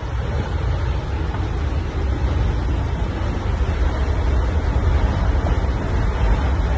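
Strong tornado winds buffeting the microphone: a loud, steady rushing rumble that swells slightly after the first second.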